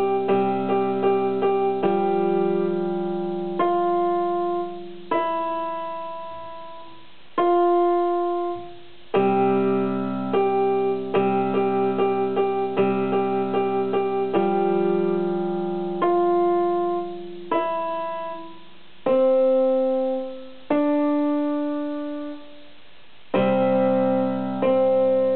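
Electronic keyboard in a piano voice playing a simple children's tune: single melody notes struck one at a time, some quickly repeated, over lower chords held for a couple of seconds each. It comes in short phrases with brief breaks between them.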